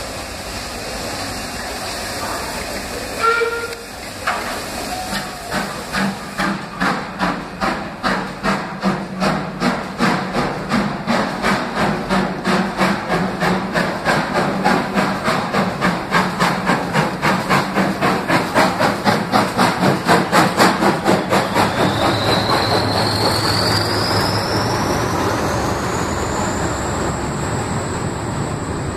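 Metropolitan Railway steam tank locomotive passing close by under power, its exhaust chuffing in an even rhythm of about two to three beats a second that grows louder as it nears, after a short whistle toot about three seconds in. Then the coaches rumble past on the rails, with a high whine rising in pitch near the end.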